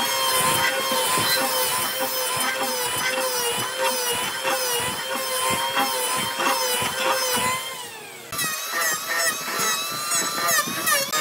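An electric power tool working wood: its motor whine rises to speed at the start, holds steady, and winds down about eight seconds in. Another tool whine, wavering in pitch, starts again near the end.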